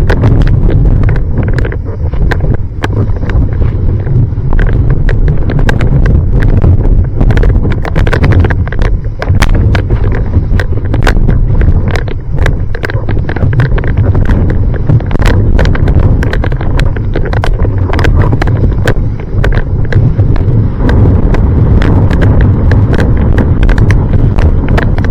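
Strong typhoon wind buffeting the microphone: a loud, unbroken low rumble with frequent crackles.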